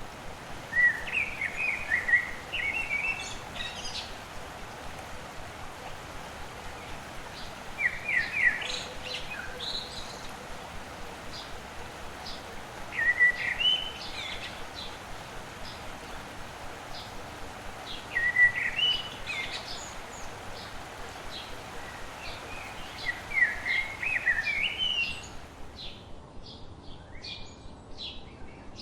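A songbird singing the same short warbled phrase about every five seconds, with thin chirps between phrases, over a steady background hiss. Near the end the hiss drops away and only short chirps remain.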